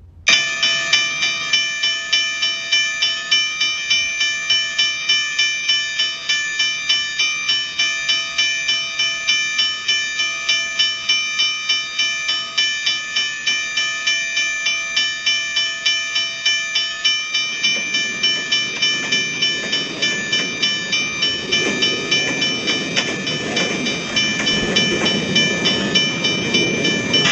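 Railway level-crossing warning bell, low-pitched, ringing in rapid, even strikes. About two-thirds of the way through, the rumble of a passing train joins it.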